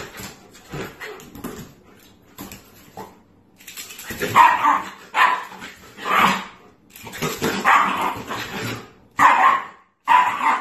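Shiba Inu barking in short bursts, about six times mostly in the second half, while tugging on a rubber toy in play.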